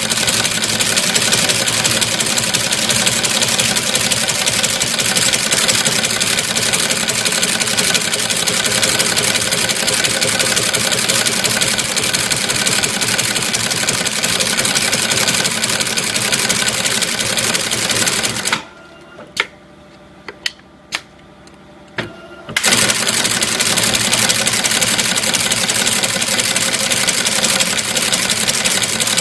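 Two-axis brush tufting machine running steadily as it punches bristle tufts into a wooden brush block. About two-thirds of the way through it stops for about four seconds, leaving a few sharp clicks, then starts again.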